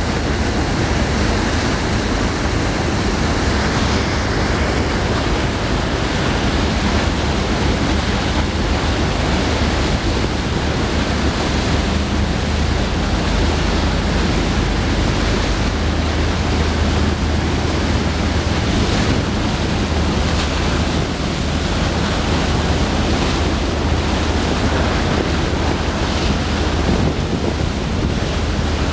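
Loud, steady rushing of the churning wake thrown up at the stern of the fast passenger ferry Mørejarl under way at speed, with a steady low engine hum underneath and wind buffeting the microphone.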